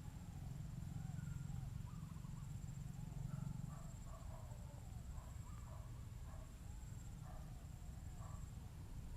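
Faint field ambience: many short, overlapping animal chirps over a low wind rumble, with a thin, steady high-pitched whine throughout.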